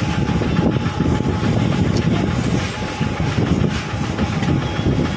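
Loud continuous low mechanical rumble with a rattling texture, over a faint steady hum.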